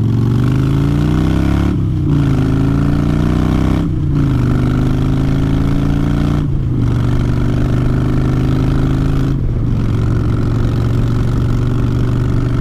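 2009 Harley-Davidson Dyna Fat Bob's Twin Cam V-twin, through Vance & Hines Short Shots exhaust, accelerating up through the gears. The pitch climbs, breaks briefly and steps down at each of four shifts, and after the last shift holds steady at cruising speed.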